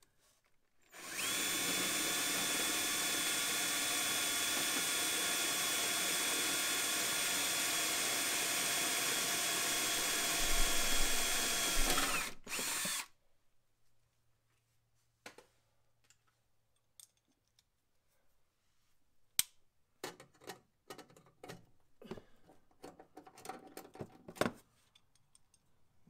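Cordless drill running at a steady pitch for about eleven seconds, getting louder near the end as it works the aluminum radiator cowl panel, then a brief second burst. After that come scattered light clicks and handling knocks.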